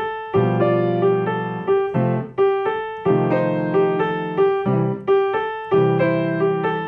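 Piano playing a simple blues: chords struck in a steady bouncing rhythm, a new chord roughly every half second, working through the three primary chords with an extra chord added on the V7.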